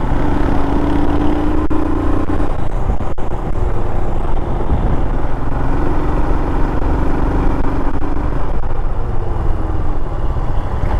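Motorcycle engine running at a steady cruise under a heavy low rumble, with the engine note holding steady near the start and again in the middle. Two sharp knocks come in the first few seconds.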